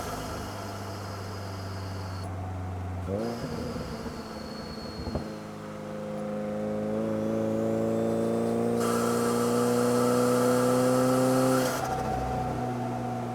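2022 Subaru WRX's turbocharged flat-four engine under throttle: a short rev about three seconds in, then a long, slowly rising pull with turbo rushing building over it. Near the end the throttle is lifted and the note drops suddenly as the turbo flutters off.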